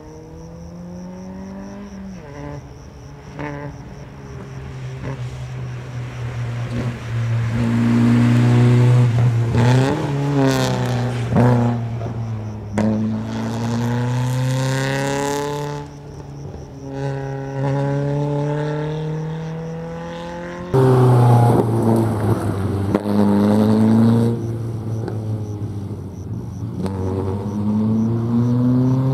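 Small hatchback rally car at full throttle on a special stage, its engine note climbing and dropping again and again with gear changes as it approaches, passes and pulls away. About two-thirds of the way through the sound jumps suddenly louder, then fades toward the end.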